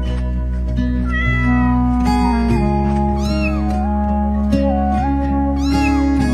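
A cat meowing three times, a couple of seconds apart, over steady background music with plucked guitar.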